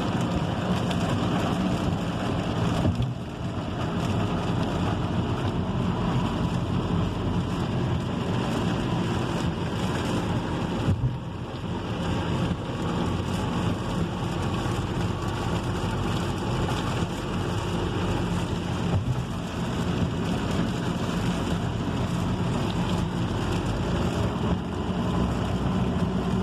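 Steady noise inside a car driving through a heavy rainstorm: rain on the car and tyres on the soaked road, over a low steady road and engine drone.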